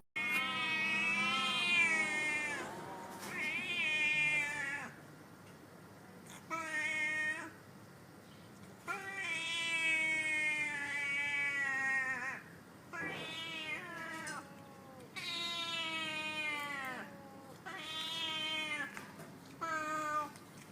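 A cat meowing over and over: about eight long, drawn-out meows whose pitch wavers, each lasting from half a second to about three seconds.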